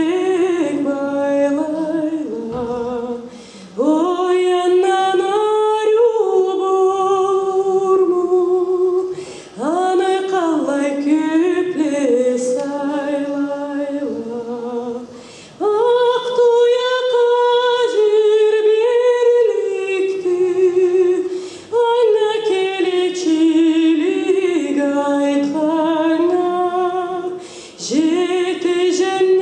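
A young woman singing a Karachay-Balkar folk song unaccompanied. Her solo voice carries long melodic phrases with short breaths between them, about every six seconds.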